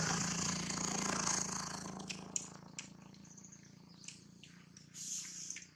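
A steady motor drone fades out over the first couple of seconds. Scattered sharp clicks and crackles follow.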